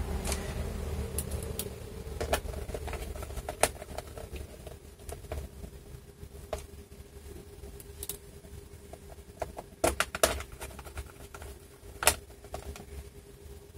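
Scattered sharp clicks and taps of small screws and a screwdriver on a laptop's plastic bottom case as the case screws go back in, over a faint steady hum.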